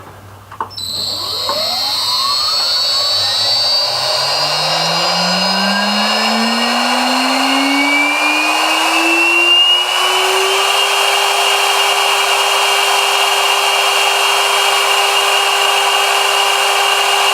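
Chinese CNC spindle motor spinning up from standstill: a whine that climbs smoothly in pitch for about ten seconds after starting, then holds steady at full speed, with a thin high whine above it.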